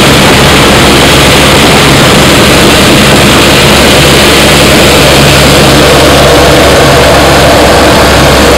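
Single-engine light aircraft's engine and propeller droning steadily, heard loud inside the cockpit in flight.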